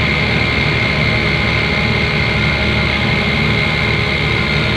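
Nissan Diesel V8 dump truck's diesel engine running steadily under load as its hydraulic tipper raises the loaded bed, with a steady high whine over the low rumble.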